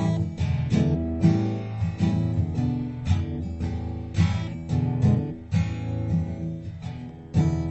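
Background music: acoustic guitar strumming and picking at a steady pace.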